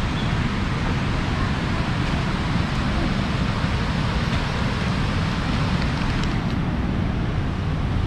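Steady rushing of nearby river rapids, with wind buffeting the microphone.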